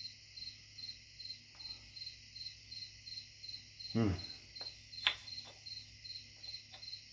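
A cricket chirping steadily in short, evenly spaced high pulses, about three a second. About four seconds in there is a brief louder sound that falls in pitch, followed by a sharp click.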